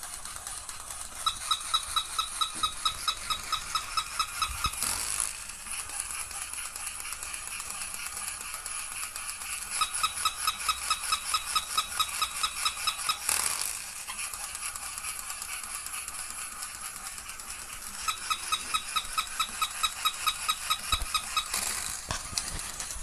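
An old mechanical toy dog's motor whirring steadily, with three spells of rapid, high, evenly repeated chirps, about five a second, as it performs its moves.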